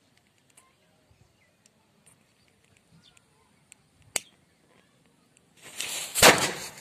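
A lighter clicks sharply about four seconds in. Near the end a bijli firecracker's fuse hisses for about a second and the cracker goes off with a sharp bang.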